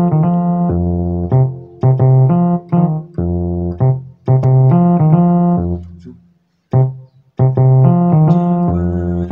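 Electronic keyboard in a piano voice playing short phrases of a Ghanaian praise song in F major: chords over deep bass notes, with running bass notes in between. The phrases are broken by brief pauses, the longest about six to seven seconds in.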